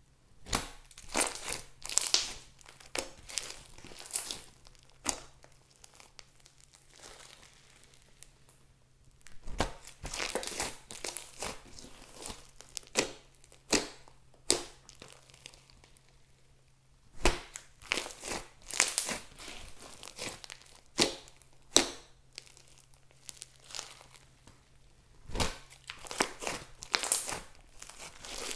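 Hands kneading, squeezing and stretching a large mass of slime mixed with foam beads, giving irregular bursts of sticky crackling and sharp clicking pops, with brief quieter pauses between handfuls.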